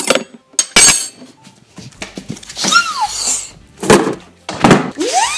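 Kitchen handling sounds: several sharp knocks and clunks as a refrigerator is opened and things are moved about, with two short squeaky gliding tones in the second half, the second one rising and then falling near the end.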